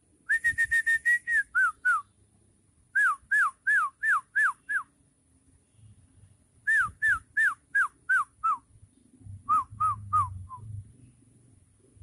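A bird calling with clear whistled notes in four bouts. The first bout opens with a quick run of level notes. The rest are repeated notes that each slur downward.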